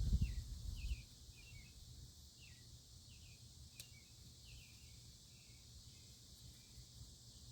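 Birds chirping faintly, a string of short falling chirps every half second or so. A low rumble runs through the first second.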